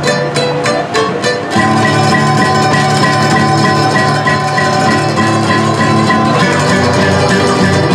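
Acoustic guitars playing an instrumental passage together: short, choppy strums for about the first second and a half, then fuller chords with notes ringing on.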